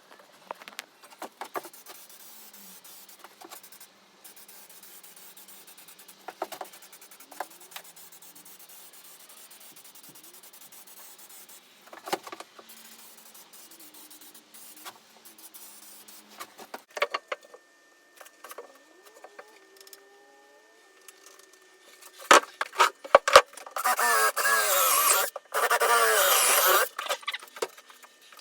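Scattered clinks and knocks of tools and metal being handled, then a few seconds of loud scraping with a squeaky edge near the end.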